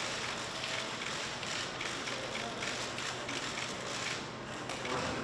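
Many press photographers' camera shutters firing in rapid, overlapping bursts, a dense steady run of clicks.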